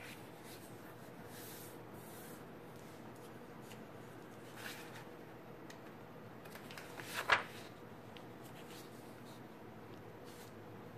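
Sheet of white paper being folded in half by hand: soft rustling and rubbing, with two brief crinkles about four and a half and seven seconds in, the second the loudest.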